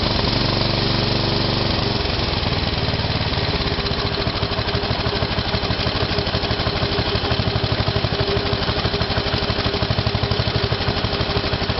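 Westwood T1300 ride-on mower's Briggs & Stratton engine running steadily at idle just after a cold start on full choke.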